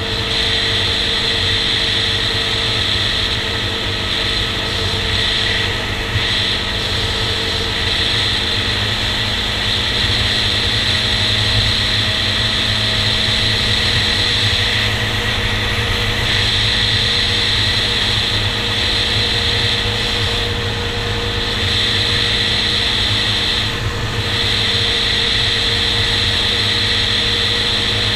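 Honda TRX400EX quad's single-cylinder four-stroke engine running at a steady cruise, heard from the rider's helmet with a strong rush of hiss over it. The note dips briefly a few times.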